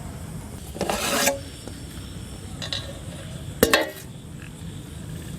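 A metal utensil working in a cooking pot: a rasping scrape about a second in, then a sharp ringing metal clank a little before four seconds.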